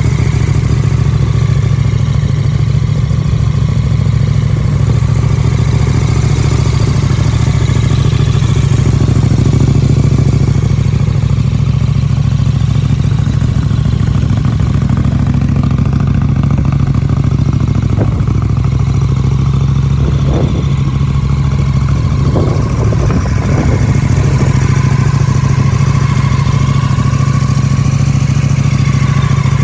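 KTM 1290 Super Duke R's V-twin engine idling steadily through a full Akrapovic titanium exhaust system.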